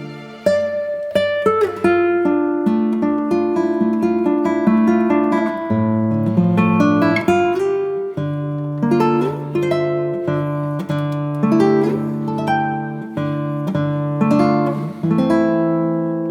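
Instrumental background music: a melody of plucked acoustic guitar notes over a bass line, each note ringing and fading.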